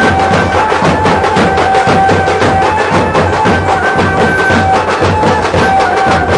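Loud music with fast, dense drumming and a melody of long held notes that step between pitches above it.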